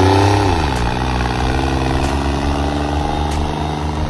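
Modified New Holland 3630 tractor's diesel engine working under load as it pulls a disc harrow through the field, its note dropping in pitch over the first half second, then holding steady.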